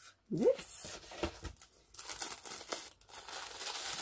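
Paper packaging rustling and crinkling as an item is unwrapped and lifted out of a box, with a few light clicks of handling.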